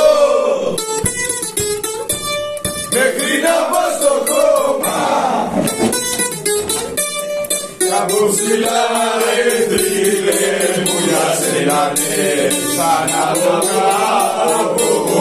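A song: a voice singing Greek lyrics over plucked bouzouki accompaniment.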